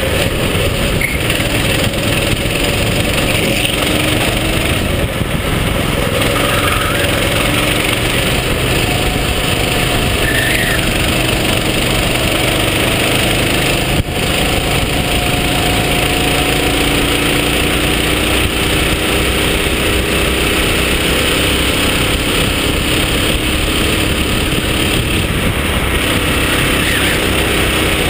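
Racing kart engine heard from onboard at speed, its pitch climbing slowly again and again as it accelerates and dropping back between, under a dense rush of wind and track noise. A short knock about halfway through.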